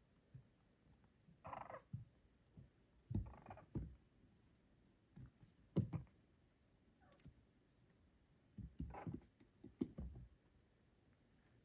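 Bengal kitten's paws tapping and scrabbling on a hard plastic storage-box lid: a scattering of light knocks and scratches, the loudest about six seconds in, with a thump near the end as it jumps down.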